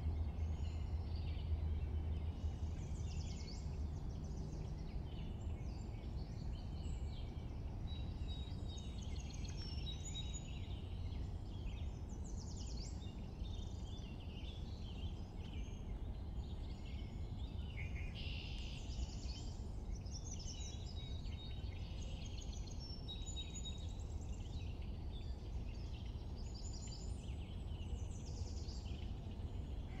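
A chorus of many songbirds singing at once in spring, with overlapping high chirps and rapid trills over a steady low rumble.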